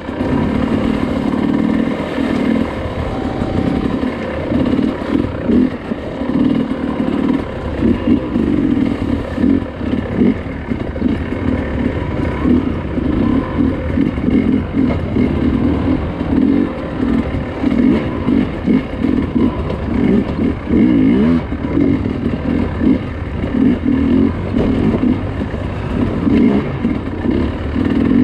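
Dirt bike engine under constant on-and-off throttle while riding a rough off-road trail, revving up and easing off over and over.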